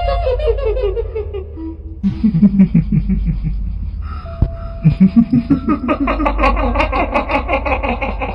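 Kuntilanak ghost laughter: a cackling 'hihihi' laugh in several runs of rapid pulses, falling in pitch at first and rising again in a longer run from about five seconds in, over a low steady drone.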